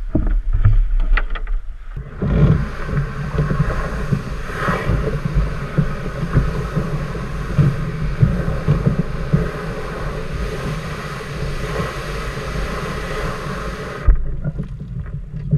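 Wind noise on the microphone mixed with surf washing at the shoreline: a steady rough rumble that cuts off abruptly near the end. A few knocks come in the first two seconds, and a sharp thump follows the cut-off.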